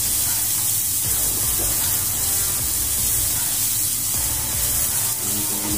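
Minced garlic and onion sizzling in a nonstick frying pan as they are stirred with a silicone spatula, a steady hiss.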